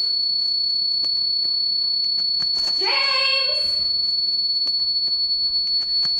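A loud, steady high-pitched tone, with a short, rising, voice-like wail about three seconds in and scattered faint ticks.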